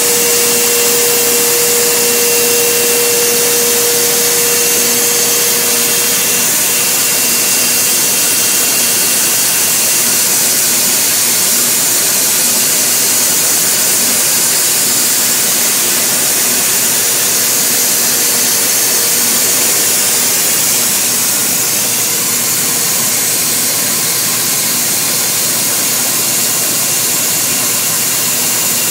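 KOMO CNC router running: a loud, steady hiss and whine from its spindle and vacuum, with a steady hum in it that fades out about six seconds in.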